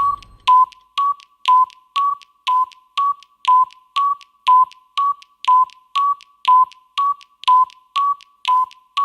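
Digital countdown timer ticking with short electronic beeps, about two a second, alternating between two slightly different pitches like a tick-tock.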